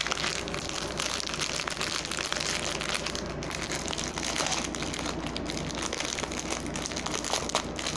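Clear plastic bags of acrylic crystal drills crinkling and rustling as they are handled, with a continuous run of fine crackles.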